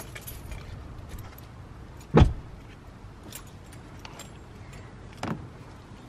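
Bags and beach gear being handled in a car's open trunk: a heavy thump about two seconds in and a softer one just past five seconds, over a low steady rumble.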